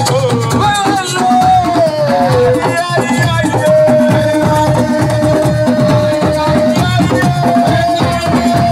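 Live assiko band music: drums and percussion beating a dense rhythm under a melody line that glides down, then holds one long note through the middle.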